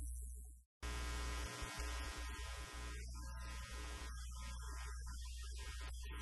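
Steady low electrical mains hum with a light hiss over it. The sound cuts out completely for a split second just under a second in, then the hum carries on.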